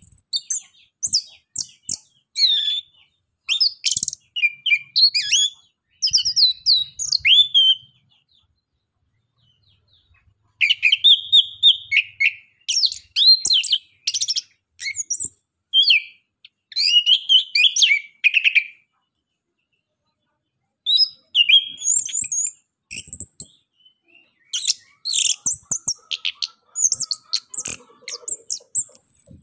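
Chestnut-capped thrush (anis kembang) singing in rapid runs of varied high chattering and whistled notes. It pauses twice for about two seconds, once near the middle and once about two-thirds of the way through.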